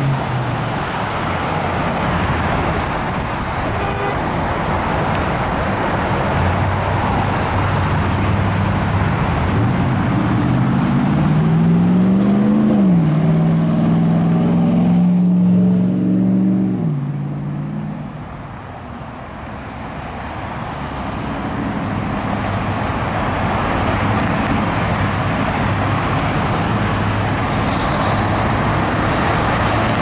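Road traffic at a busy intersection: a steady noise of cars and trucks passing. About a third of the way in, one vehicle's engine climbs in pitch as it accelerates, drops suddenly as it shifts up, holds for a few seconds and fades, then the traffic goes briefly quieter before building again.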